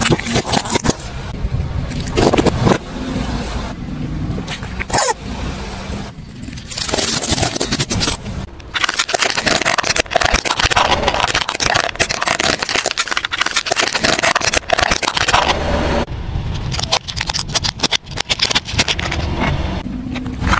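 A car tyre rolling slowly over objects on asphalt and crushing them: plastic cracking and snapping, crunching and scraping under the tread, and wet squashing as a package bursts. The sound changes abruptly several times as one crush gives way to the next.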